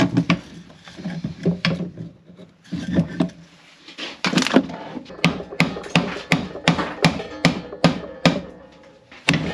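Rotten wooden boat-frame timber held in a vise being broken up: a few knocks and cracks as a split piece is prised off, then from about four seconds in a steady run of hammer blows on the wood, about three a second.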